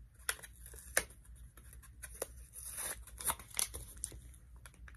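Hands fiddling with a small plastic white-out container, trying to get it open: scattered small clicks and taps, with a short scrape just before the middle.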